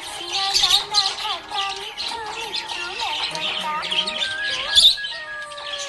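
Budgerigars chirping and warbling in busy, continuous chatter of short rising and falling notes, over background music.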